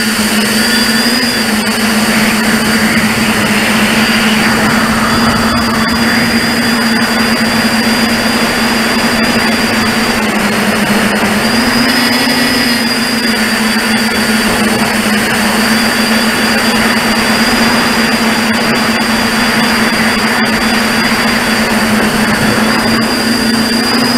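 RCExplorer V4 tricopter's brushless motors and propellers heard from on board, a steady buzzing drone over a rushing noise. The pitch rises briefly about a second in and again about twelve seconds in as the throttle is pushed up.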